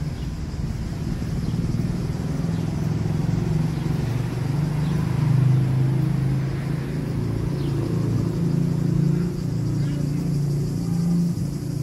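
Motor vehicle traffic with a steady low engine rumble, swelling a little about halfway through.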